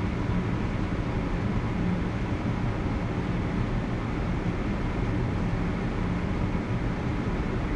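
Steady drone of an aircraft in flight heard from inside the cabin: engine and airflow noise with a low rumble, unchanging throughout.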